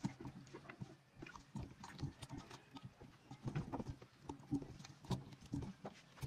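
Hands squishing and rubbing a raw whole chicken in its marinade in a metal bowl: quiet, irregular wet squelches and soft slaps of raw skin.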